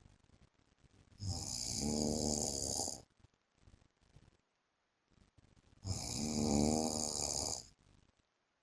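A man snoring in his sleep: two long, pitched snores about four and a half seconds apart, each lasting nearly two seconds.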